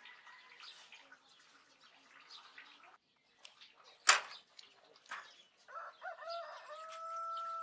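A rooster crowing near the end, one call that wavers briefly and then holds a long steady note, over faint outdoor ambience with small bird chirps. A single sharp click about four seconds in.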